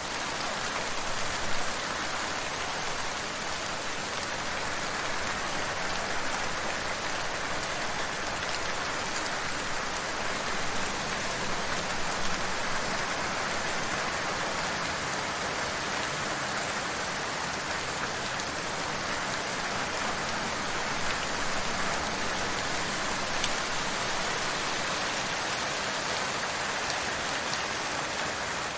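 Rain falling steadily, an even hiss with no letup, with a few brief louder spatters.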